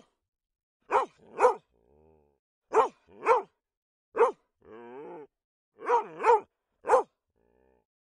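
Weimaraner barking in short, sharp single barks, mostly in quick pairs, about nine in all, with a few softer whines between them.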